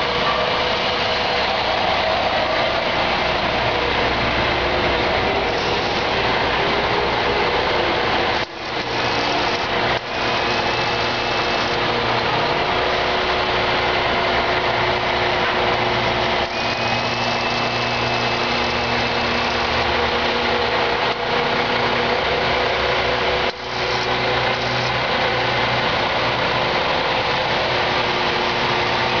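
Truck engine idling steadily, a constant mechanical running noise with a few steady tones, briefly dropping out a few times.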